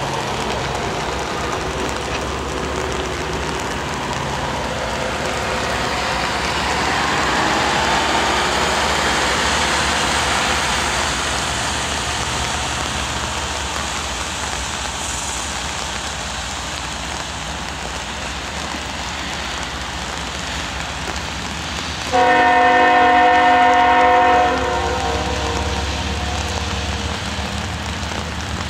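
Heavy rain hissing steadily over a diesel freight locomotive, a CP ES44AC, idling and starting to pull its train. About three-quarters of the way through, a locomotive horn sounds one long chord lasting about two and a half seconds.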